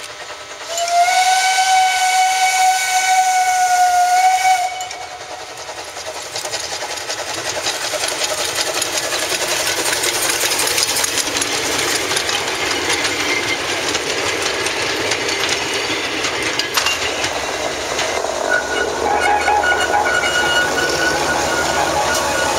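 Narrow-gauge steam locomotive's whistle: one long blast at a steady pitch lasting about four seconds, starting about a second in. It is followed by the hiss and clatter of the steam train passing close, growing louder and staying loud.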